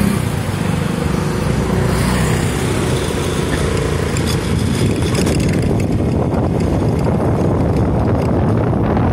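Engine of a small motor vehicle running steadily as it rides along a road, with a dense low rumble throughout.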